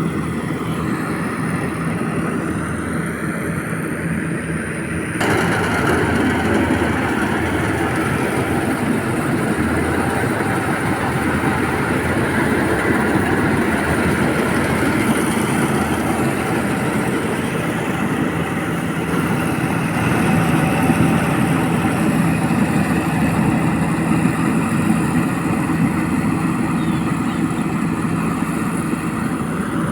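Engine of a rice harvesting machine running steadily, with a sudden jump to a louder, noisier sound about five seconds in.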